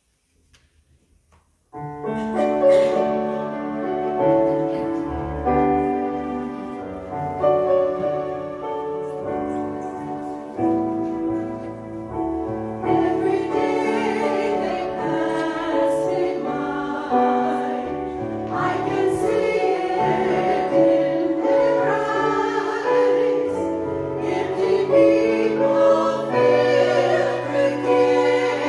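A choir singing a hymn with piano accompaniment, starting about two seconds in after a near-silent pause.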